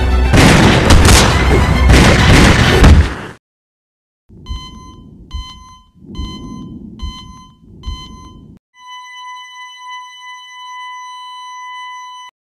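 Loud trailer music with heavy hits for about three seconds, cutting off suddenly. Then a heart-monitor sound effect: a series of single beeps a little under a second apart over a low rumble, turning into a steady flatline tone for the last few seconds, the sign of a heart that has stopped.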